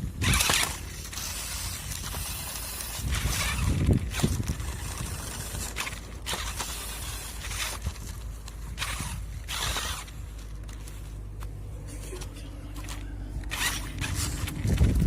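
Battery-powered RC 4x4 truck driving, heard from on board: a steady motor and gear hum with repeated short scrapes and knocks from the chassis and wheels over the ground.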